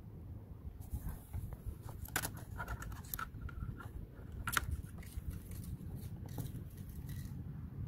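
Handling noise from a plastic blower housing and its nylon strap and plastic buckle: scattered clicks, taps and scrapes, the sharpest about two seconds in and again past the midpoint, over a steady low rumble. The blower is not running.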